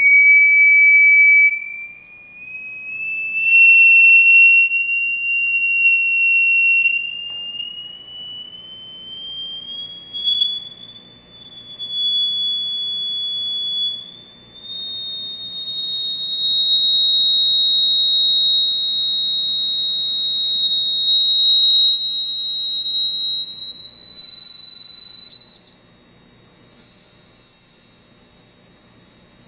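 A steady, high-pitched electronic tone sliding slowly upward in pitch, swelling loud and falling away several times as it climbs: a swept-frequency signal driving a vibrating plate to form sand patterns.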